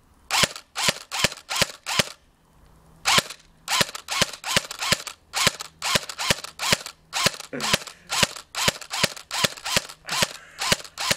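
ICS CXP electric airsoft rifle firing single shots in quick succession, about three a second, with a pause of about a second near the start. Each shot is a sharp crack with a brief gearbox whine.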